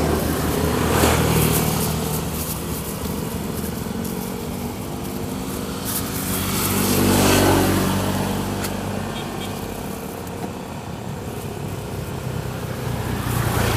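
Motor vehicles passing on the road: engine sound swells and fades twice, the louder pass about halfway through.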